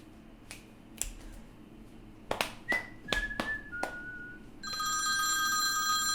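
A few light clicks, then three short chime notes stepping down in pitch, then a sustained ringing chord that starts a little past the middle and holds.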